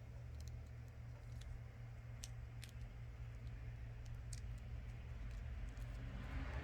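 A few faint, scattered clicks and ticks from small metal tools and parts being handled while a smartwatch's replacement screen and its flex cables are fitted, over a steady low hum.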